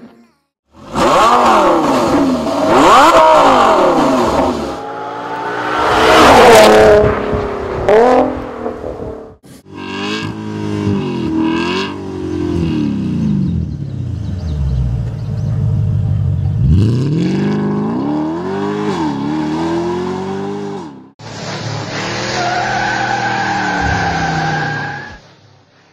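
Nissan GT-R R35's twin-turbo V6 revving hard through an aftermarket Armytrix exhaust, in several separate clips cut sharply together. The engine note sweeps up and down, drops very low about midway, and gives way near the end to a steadier, higher-pitched stretch.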